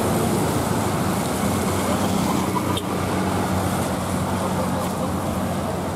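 Road traffic: engines of cars, motorcycles, a bus and trucks running steadily as they pass, with an even low engine hum.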